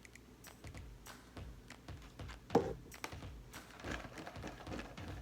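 Light, uneven clicking and tapping as pepper and spices are added to the shrimp, with one louder knock about two and a half seconds in. Background music comes in near the end.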